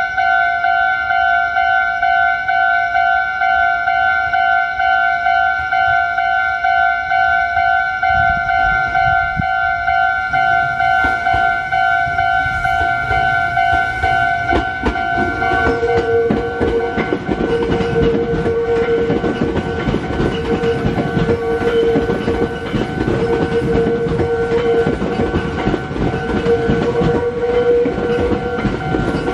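Japanese level-crossing warning bell ringing steadily in a rapid repeating electronic ding. About halfway through, a Meitetsu electric train passes over the crossing, adding a rumble, a rapid clatter of wheels over rail joints and a pulsing tone, while the bell keeps ringing.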